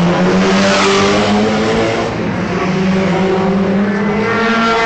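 Sports car engine accelerating hard, revs climbing, dropping at a gear change about two seconds in, then climbing again.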